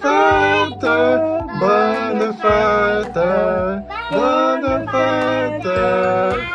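A song: voices sing a melody of held notes, each about half a second long with short breaks between them, over a steady low accompaniment.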